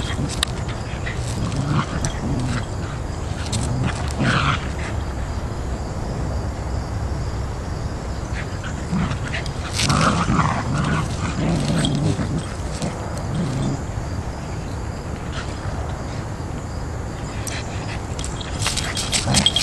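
Two keeshonds play-wrestling, growling and grunting in short spells, loudest about ten seconds in. A run of sharp clicks comes near the end.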